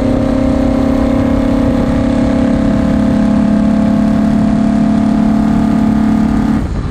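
Porsche 917/10's flat-12 engine running hard, its pitch slowly rising, heard from the open cockpit with rushing wind. The engine note cuts off suddenly near the end.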